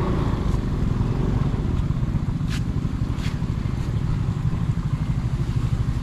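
Motorbike engine running steadily while riding, a dense low rumble with rapid pulsing. Two short sharp clicks sound about halfway through.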